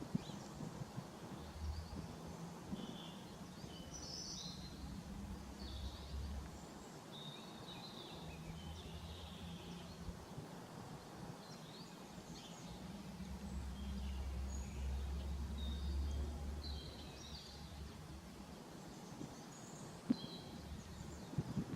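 Small birds chirping on and off, with a low rumble underneath that swells in stretches and is loudest a little past the middle.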